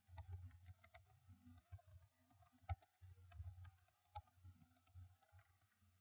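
Near silence with faint, irregular clicks over a low steady hum; the sharpest click comes a little under halfway through.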